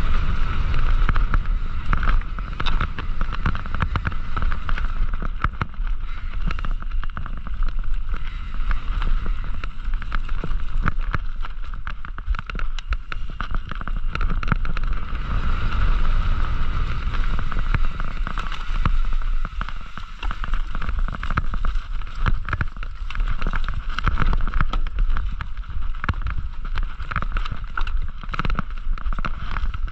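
Mountain bike being ridden along a cross-country trail: wind buffets the microphone, with constant rattles and knocks from the bike going over bumps and a steady buzz running underneath.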